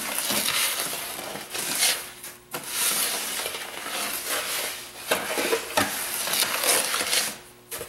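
A spoon stirring and scraping dry bath-salt granules (Epsom salt, sea salt and baking soda) around a large pan. It comes as a gritty hiss in several long strokes with brief pauses between them.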